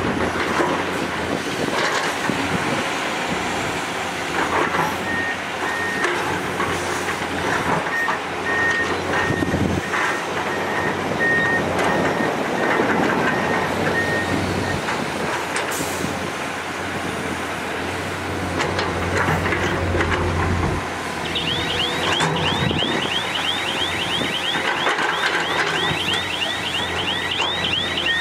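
Tipper dump truck's diesel engine running as the bed tips and sand pours out, with a high electronic warning beeper sounding in regular beeps for several seconds. About three quarters of the way through, a fast repeating chirping alarm starts and keeps going.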